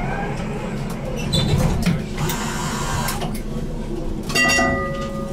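BN GTL8 tram running with a steady low rumble, a hiss about two seconds in, and a pitched tone that comes in just past four seconds and holds.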